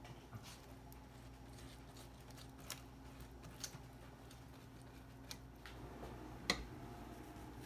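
Faint, scattered ticks and taps as a silicone pastry brush dabs melted butter onto freshly baked soft pretzels and dips into a small glass bowl, with one sharper knock a little before the end.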